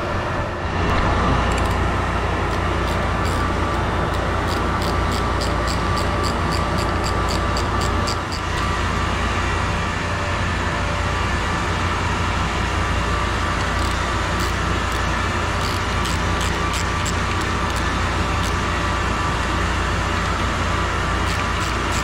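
Steady hum of condenser water pumps and their motors running, with a ratcheting wrench clicking at about three clicks a second as strainer cover bolts are loosened. The clicking starts a second or two in, pauses for several seconds past the middle, then resumes.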